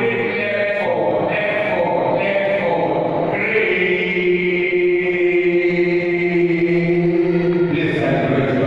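Voices chanting together in a pitched, sung line, holding one long note for several seconds in the middle.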